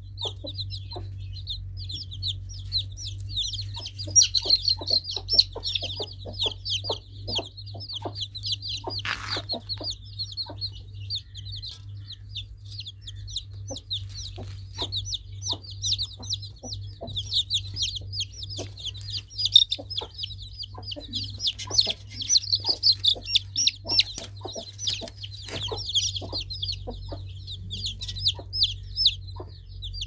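Domestic chicken chicks peeping continuously, many high, short, downward-sliding chirps overlapping in a constant chorus. Scattered sharp taps and a steady low hum run underneath.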